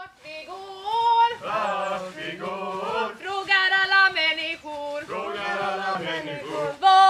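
A small group of voices singing a song together without accompaniment, with held, chant-like notes.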